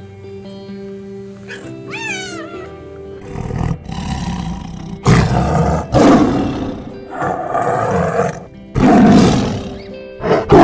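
A big cat roaring in a series of about six loud calls, each about a second long, starting about three seconds in. Before it, a short rising-and-falling meow sounds over background music with steady held tones.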